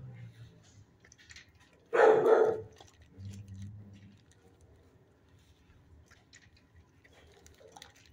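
A dog barks, one short loud outburst about two seconds in, among the kennels of an animal shelter.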